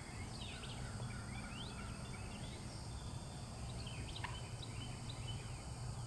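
Songbirds chirping and whistling here and there, short rising and falling notes, over a steady low background rumble.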